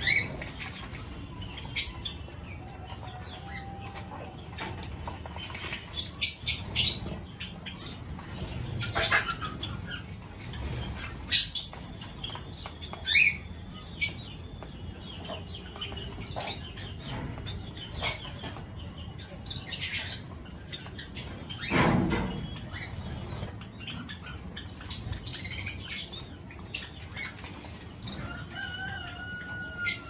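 Java sparrows and other small finches in an aviary flapping their wings in short flutters, with scattered brief chirps. One longer, louder flutter comes about two-thirds of the way through.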